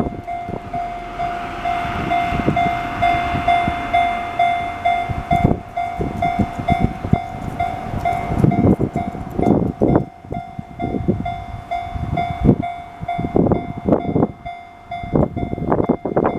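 Level-crossing alarm sounding its repeating electronic bell tone, the Chichibu Railway's distinctive 'Chichibu sound', while a train passes over the crossing. The train's wheels knock in quick pairs over the rail joints through the second half.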